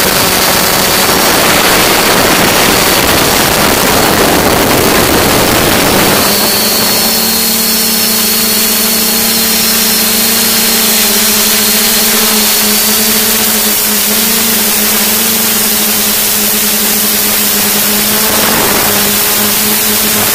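Electric motors and propellers of an S550 hexacopter heard from its onboard camera: a loud rushing of wind over the microphone for about the first six seconds, then a steady multi-tone propeller hum under lighter wind hiss, with a brief gust of noise near the end.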